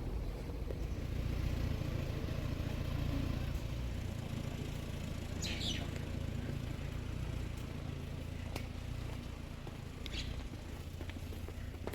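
A low, steady rumble, with a bird chirping twice, about six and ten seconds in, and a few faint clicks.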